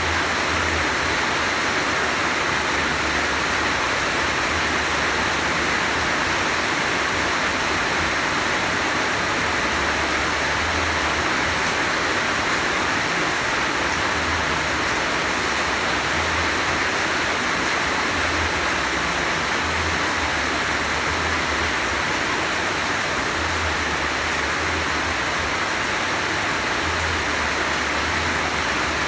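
Heavy rain pouring down, a steady dense hiss with a faint low rumble coming and going.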